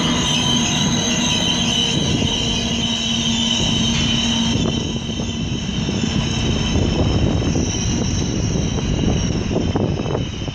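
ICE high-speed train pulling away along the platform. A high squeal and whine from the wheels and drive fade over the first few seconds as the rear power car passes, leaving a steady rumble of the train running off.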